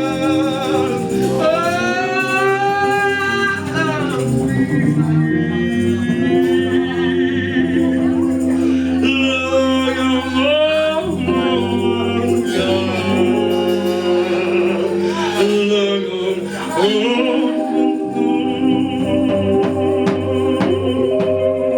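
Live band music in a slow gospel style: a singer's wordless, sliding vocal runs over held chords.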